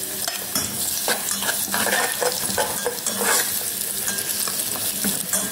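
Cashew nuts and raisins sizzling as they fry in hot ghee in a pan, turned over and over with a spatula that scrapes through them in repeated short strokes.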